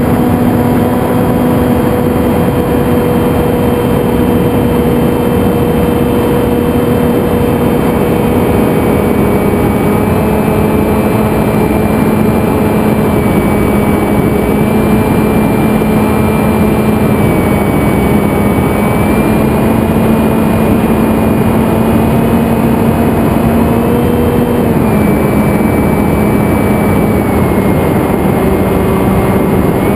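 Zephyr FPV flying wing in flight, recorded on board: its electric motor and propeller hum steadily under heavy wind rush on the microphone. The pitch steps down a little about a quarter of the way in and again near the end.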